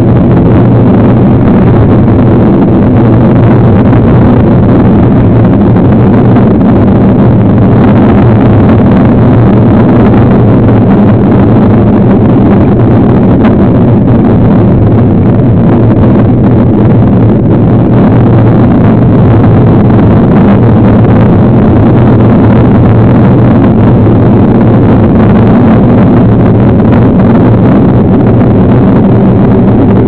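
Steady, loud rush of wind and rolling noise on the microphone of a camera riding on a mountain bike along a paved road, with a steady low drone underneath.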